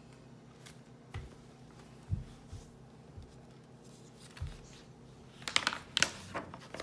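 A paper picture-book page being turned, a crisp rustle and flap about five and a half seconds in, after a few soft low bumps of hands handling the book.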